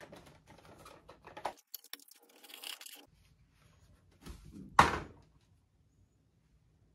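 Cosmetic packaging being handled and opened by hand: light clicks and rustling, a brighter rustle about two seconds in, then one sharp snap about five seconds in.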